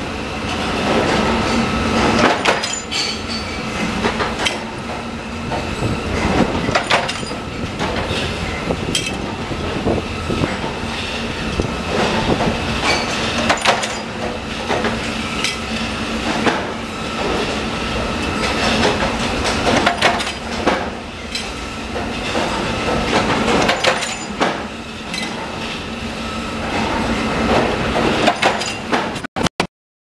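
Mechanical punch press in a sheet-metal stamping workshop, running with a steady hum and clatter, with sharp metal knocks and clinks every few seconds as it stamps drawer-pull handle blanks. The sound cuts off abruptly shortly before the end.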